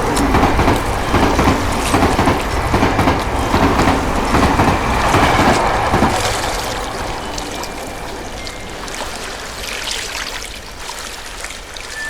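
A train running past with a steady rumble and rattle that fades away through the second half.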